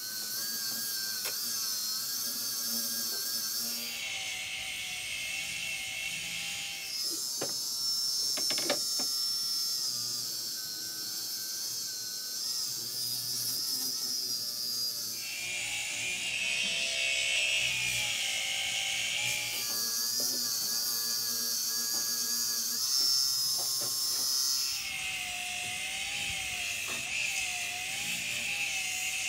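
Small handheld electric power sander running against a mahogany hull blank and body filler, a high motor whine over a hiss of abrasion. The whine wavers and changes pitch every few seconds as the tool is worked along the side.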